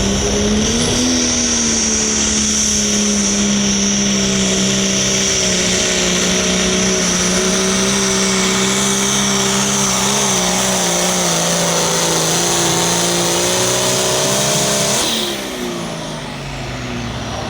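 Hot farm class pulling tractor's turbocharged diesel engine at full throttle under load during a pull, holding a steady pitch with a high whine above it. About fifteen seconds in the throttle is cut and the engine winds down.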